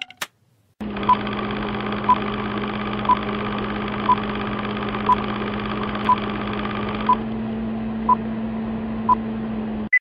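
Film-leader countdown sound effect: a steady film-projector whir with a low hum, and a short high beep once a second, nine beeps in all. It cuts off suddenly just before the end.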